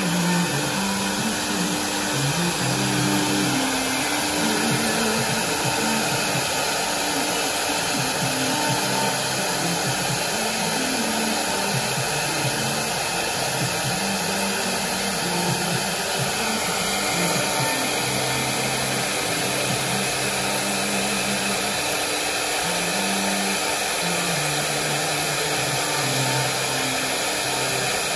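The four 4.5 kW HQD air-cooled spindles of a four-head CNC router run steadily while their bits carve relief into a board. The sound is a constant, even rushing whine.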